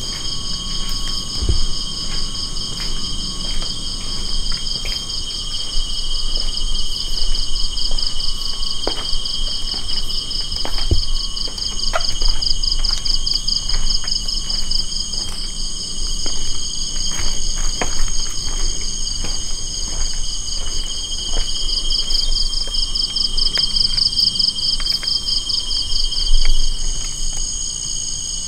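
Steady, loud chorus of insects: several high-pitched tones layered together, one of them rapidly pulsing, with scattered faint clicks and knocks throughout.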